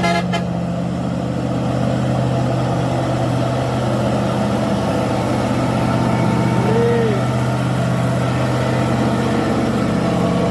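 Diesel engine of a loaded tandem-axle heavy truck carrying oil palm fruit bunches, running steadily under load as it climbs a dirt slope and passes close by.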